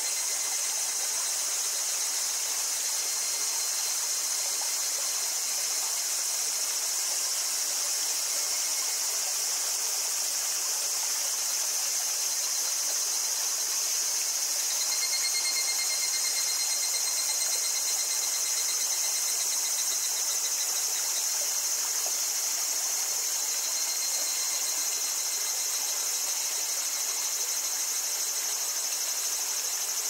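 Cicadas singing in a steady, high-pitched chorus over the trickle of a small stream, with a thin pulsing insect trill that comes and goes several times.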